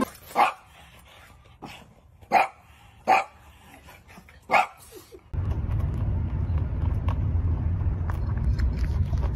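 French bulldog barking: four short barks over the first five seconds. After that, a steady low rumble with faint clicks.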